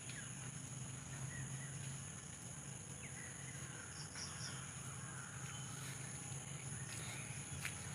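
Rural outdoor ambience: a steady high insect drone with a few scattered bird calls, over a low hum. There is a single click near the end.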